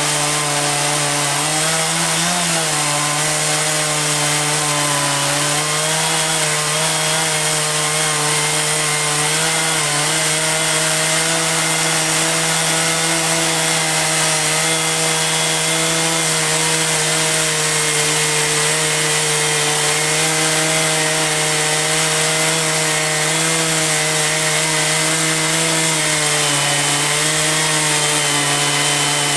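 Sawmill's engine running steadily at high speed while the saw cuts through a log, its pitch dipping briefly now and then under load.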